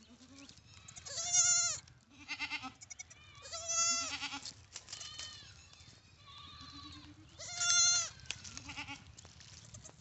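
Goat kids bleating: a run of about seven quavering calls, the loudest about a second and a half in, at four seconds and near eight seconds.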